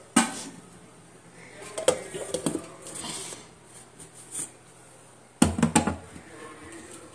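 Stainless steel mixer-grinder jar and lid being handled: sharp metal clinks and knocks in three short spells, right at the start, about two seconds in, and about five and a half seconds in, as the lid is pressed on and the jar is moved. The mixer motor is not running.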